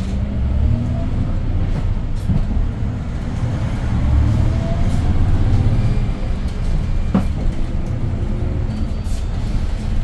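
Hyundai New Super Aerocity city bus's C6AF CNG engine running under load with a low rumble, its engine and drivetrain note rising as the bus pulls away and accelerates. A single short knock about seven seconds in.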